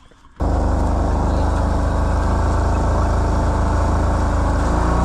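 Quad bike engine running steadily. It cuts in suddenly about half a second in and holds a constant pitch.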